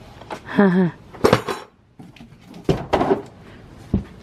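Hard plastic parts of a ride-on toy car and their cardboard packaging being handled, knocking and clattering together in several separate knocks.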